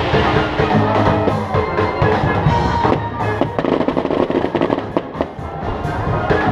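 Music with drums plays throughout while aerial fireworks burst and crackle over it, the bangs and crackling growing denser in the second half.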